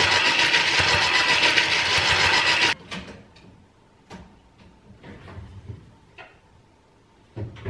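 Electric hand mixer beating cake batter in a plastic bowl as oil is poured in: a steady whir with a faint whine, cut off sharply under three seconds in. Then a few faint clicks and knocks as the oven is being set to preheat.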